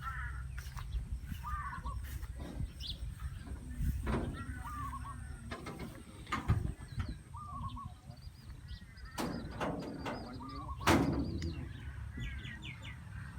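Birds calling repeatedly in short chirping and clucking notes over a steady low rumble, with a few sharp knocks.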